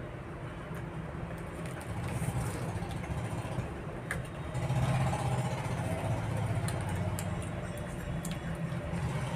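A steady low motor hum that swells about halfway through, with a few faint clicks over it.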